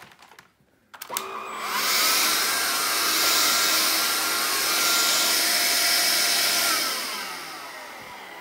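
Vax Air Cordless upright vacuum cleaner switched on about a second in, its motor whining up to speed. It runs steadily for about five seconds, then is switched off and spins down with a falling whine.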